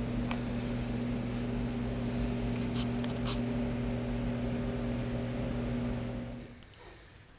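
Steady electric fan hum with a few faint ticks from the manual's paper pages being handled; the hum fades out about six and a half seconds in.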